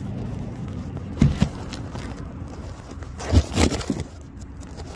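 A few short scrapes and knocks, in two brief clusters about a second in and around three and a half seconds in, over a steady low rumble.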